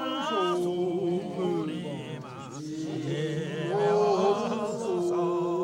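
Male voice singing a slow, chant-like Mongolian melody with long held notes that waver and ornament in pitch over a lower sustained tone.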